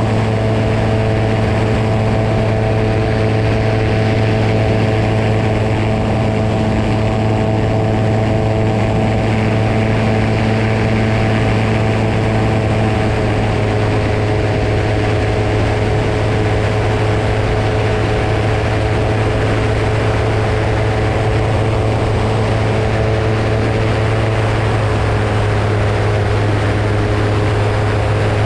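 Seamax amphibian's piston engine and propeller running with a steady drone, holding an even pitch and level throughout.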